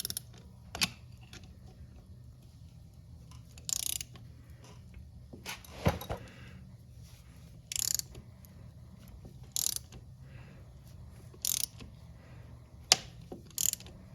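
Ratchet wrench clicking in short strokes, about every two seconds, as it turns a chain rivet tool to flare a master-link pin of the motorcycle's drive chain, with a few single sharp metal clicks between the strokes.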